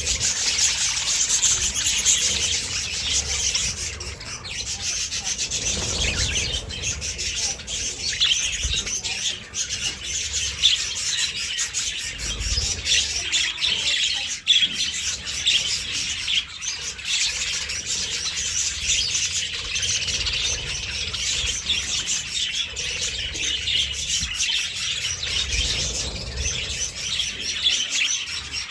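A flock of budgerigars chirping and chattering without a break, many short high calls overlapping.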